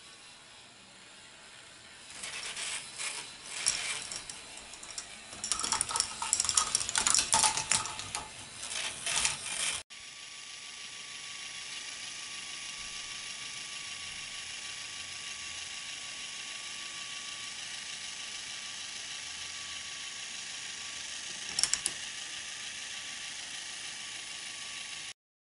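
K'Nex ball machine running: plastic balls and parts clattering with dense, quick ratchet-like clicks for about eight seconds. The clatter cuts off abruptly into a steady hiss with a faint hum, broken once by a short burst of clicks near the end.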